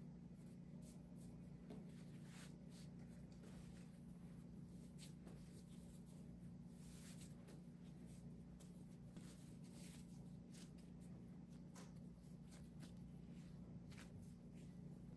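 Near silence over a steady low hum, with faint soft rustles and light taps from hands folding and shaping pumpkin bread dough into a ball on a granite countertop.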